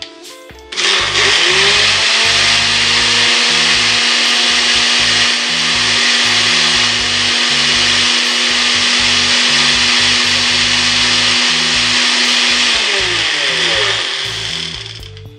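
Countertop blender motor starting about a second in, its hum rising as it spins up, then running steadily at speed as it purées a thick cilantro, lime and oil sauce in a small blender cup. The motor spins down and stops near the end.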